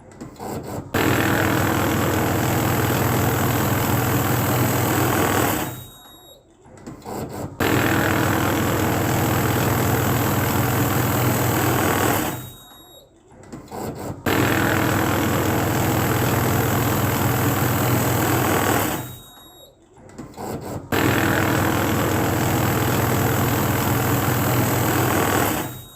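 Electric banknote counting machine running in four separate runs of about five seconds each: a steady rush of notes being fed through over a low motor hum. Between runs it stops for about a second and a half, with a few light clicks as the next batch begins.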